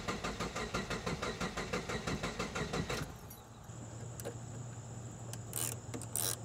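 Car engine cranking on the starter in an even rhythm of about seven strokes a second without catching: the fuel pump fuse is pulled, so cranking bleeds off the fuel pressure. The cranking stops abruptly about three seconds in, and near the end a few sharp metallic clicks come from a wrench loosening the battery's negative terminal.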